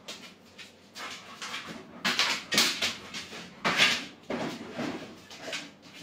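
A Labrador moving a small wooden bookshelf across a tiled floor: a few scraping bursts of wood dragged on tile, the loudest about two and four seconds in.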